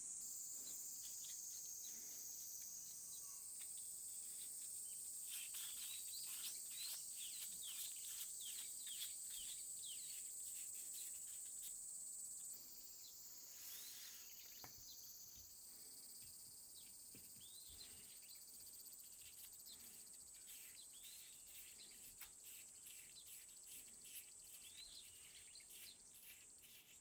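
Quiet outdoor ambience: a steady high insect trill, with small birds chirping in quick, repeated falling notes, busiest a few seconds in and again near the end.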